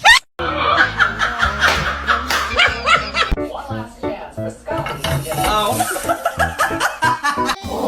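People talking and laughing over background music, with some clattering like dishes.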